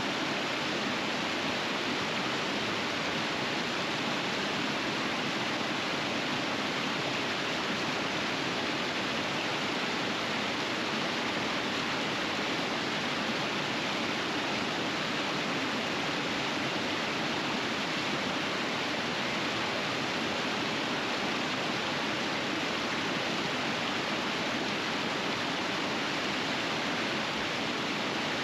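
River water rushing over rapids, a steady, even rush.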